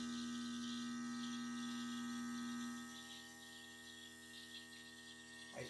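A steady electric hum with a clear low tone that cuts out about two and a half seconds in, leaving a much fainter background.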